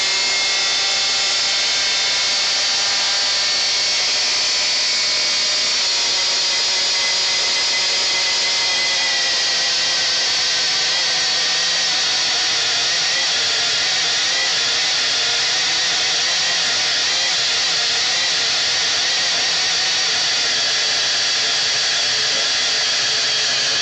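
Kenwood Chef stand mixer motor running with a steady high whine, spinning the whisk in an empty bowl. The speed dial is being turned; the pitch eases down a little several seconds in and starts to fall right at the end.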